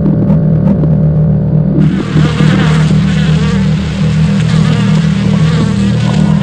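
Soundtrack of a loud, steady low drone, joined about two seconds in by a dense, wavering higher layer.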